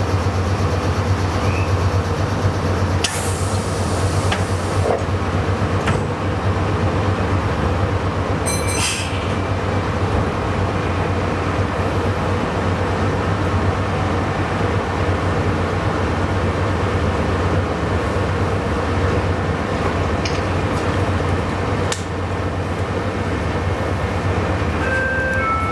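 Meitetsu 9500 series electric commuter train pulling away from a station and running, heard from inside the driver's cab. A steady low hum with constant running noise, and a brief hiss about three seconds in.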